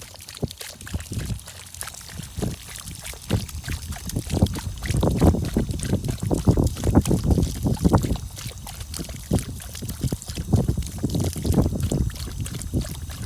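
A dog lapping water from a bowl, a fast run of wet laps and splashes that grows louder from about four seconds in.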